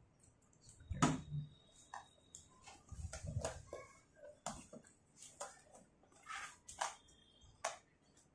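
Fingers scratching, tapping and prying at the taped flap of a cardboard laptop box: a string of light scrapes and clicks, the loudest about a second in.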